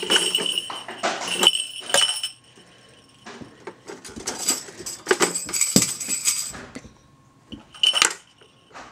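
Small toy instruments jingling and clinking as a toddler rummages through them inside a plastic toy drum, with a high bell-like ring. Two bursts of a couple of seconds each, then a short one near the end.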